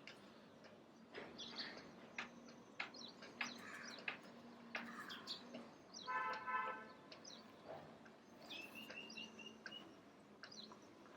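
Several small birds chirping with short, high calls. About six seconds in there is a brief, louder honk, and near nine seconds a quick run of about six repeated notes.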